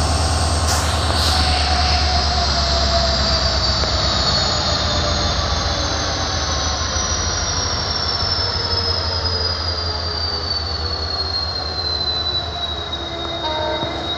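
Train wheels squealing against the rails as a train creeps along slowly: a high, thin squeal that falls gradually in pitch, over a steady low rumble, with a couple of short clicks about a second in.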